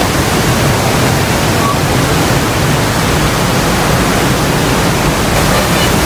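Rhine Falls waterfall rushing close by: a loud, steady, even noise of falling and churning water.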